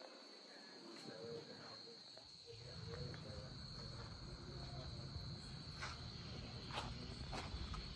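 Crickets trilling steadily at night, one unbroken high-pitched tone. A low rumble comes in about two and a half seconds in, with a few faint clicks near the end.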